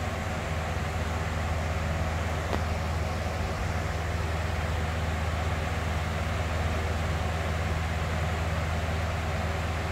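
Box fan running steadily: an even rush of air over a deep, low hum, with one faint click about two and a half seconds in.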